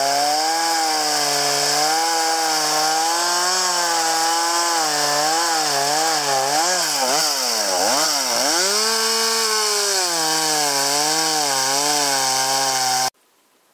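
Chainsaw running under load as it cuts lengthwise slits down into an upright log. Its pitch wavers, sags and recovers about halfway through as the bar bogs in the cut, and the sound cuts off suddenly near the end.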